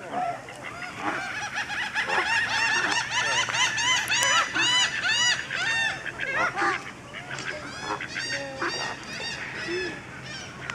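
A flock of flamingos honking: many short, rapid calls overlapping one another. They are thickest for the first several seconds and thin out to scattered honks toward the end.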